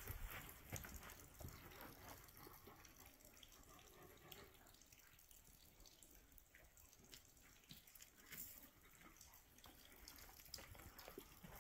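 Near silence with faint, scattered drips of water falling from a sandstone rock overhang.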